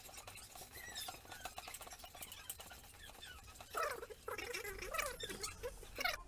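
Faint crackling and squelching of soft boiled amla pulp being rubbed by hand against a nylon mesh. About four seconds in, a cat begins meowing, a few wavering calls that are the loudest sound.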